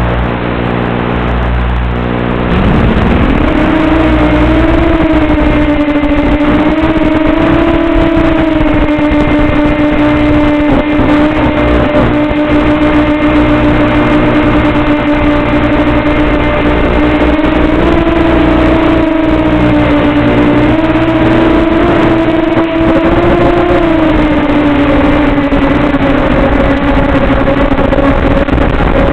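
Model aircraft motor: a low rumble, then about two and a half seconds in it throttles up sharply to a steady high whine, easing up and down slightly several times as it flies.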